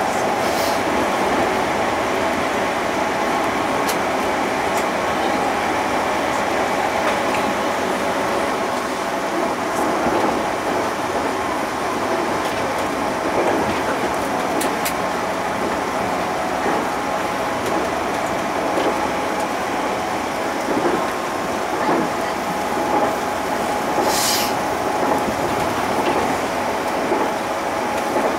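JR Central 211 series electric multiple unit running along the line, heard from inside the leading car: a steady rumble of wheels on rail with a steady whine of several tones over it. Scattered light knocks, and a brief high hiss near the end.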